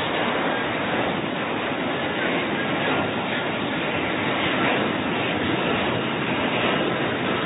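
F-35B fighter hovering for a vertical landing, its F135 jet engine and shaft-driven lift fan giving a steady, even jet noise with no change in pitch.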